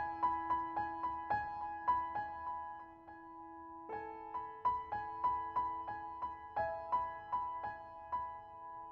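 Background music: a gentle piano-like melody of repeated notes over held tones, about three notes a second.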